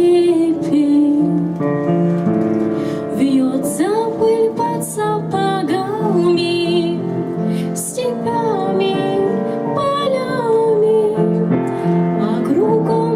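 A slow song: a woman's voice carrying a wavering melody over held keyboard chords.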